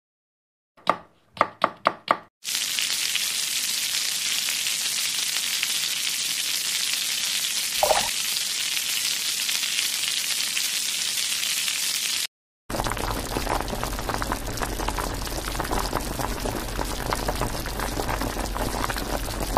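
A few quick taps, then an egg sizzling steadily in a small frying pan. After a sudden cut, a covered pan bubbles and crackles.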